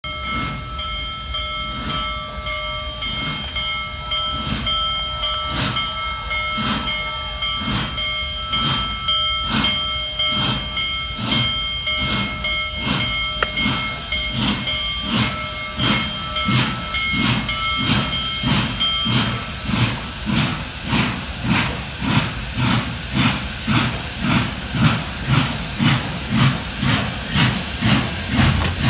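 Union Pacific Big Boy No. 4014, a 4-8-8-4 articulated steam locomotive, pulling away from a stop. Its exhaust chuffs come in an even beat that quickens from about one and a half to about two and a half a second and grows louder as it draws near, with steam hissing from the cylinder cocks. A steady high tone sounds alongside and stops about two-thirds of the way through.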